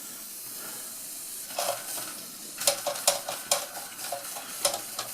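Ernest Plank upright toy steam engine hissing steam while it is being coaxed to start, with a string of irregular light metallic clicks and taps in the middle. The engine is not yet running steadily.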